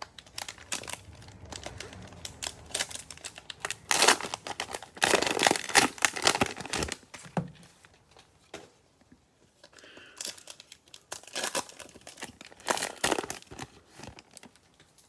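Cellophane wrapper of a Mosaic football card cello pack crinkling and tearing as it is opened, in quick crackles that are loudest in the middle, with more, quieter crinkling near the end.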